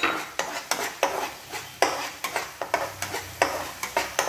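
Spatula scraping and stirring a tamarind-and-garlic sauce in a nonstick frying pan as it sizzles, about three strokes a second.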